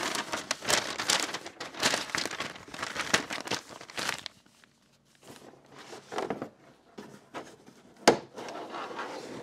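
A thin printed paper sheet crinkling as it is handled and folded for about four seconds, then softer rustling. About eight seconds in there is one sharp knock, followed by rustling as a coiled cable is lifted out of a cardboard box.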